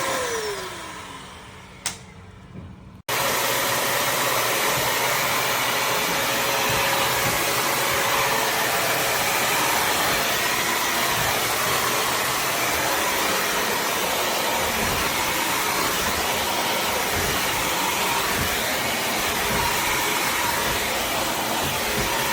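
Bissell CrossWave HydroSteam Pet wet-dry floor cleaner running, a loud steady rushing motor noise that starts abruptly about three seconds in. Before that, a quieter sound falls in pitch and fades, with a single click.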